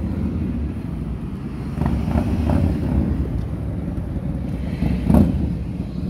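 Road traffic rumbling steadily on the street alongside, with a brief sharp knock about five seconds in.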